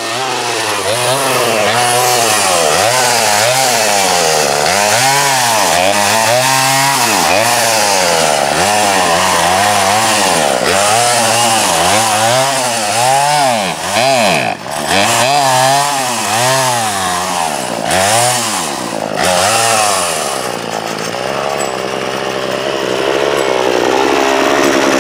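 Poulan Wild Thing 40cc two-stroke chainsaw revved up and down over and over, about once a second, while cutting into a branch, the sound dipping briefly a couple of times; about twenty seconds in it settles to a steady idle. The owner says the saw is bogging down and its carburettor still needs adjusting.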